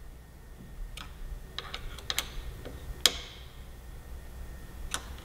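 A handful of sharp, separate clicks and taps from hands working a motorcycle's throttle housing and grip on the handlebar, the loudest about three seconds in with a short ring after it.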